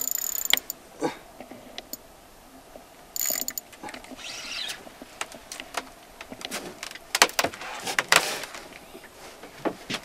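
Fishing reel cranked against a heavy hooked fish: the reel whirs in short spells, with sharp clicks and knocks scattered through.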